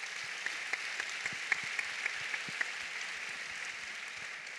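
Applause from many people clapping, steady and beginning to fade near the end.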